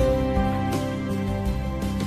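Soft, slow instrumental background music with sustained notes.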